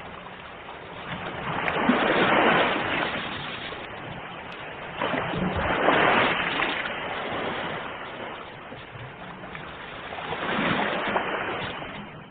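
Sea waves washing onto the shore: a steady surf hiss that swells three times as waves break, about two, six and eleven seconds in, and eases off between them.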